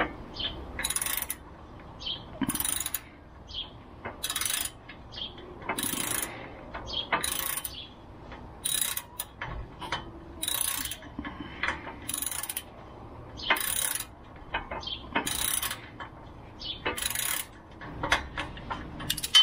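Socket ratchet on a swivel extension clicking in short bursts, about a dozen strokes spaced a second and a half to two seconds apart, as a differential-brace bolt is run in.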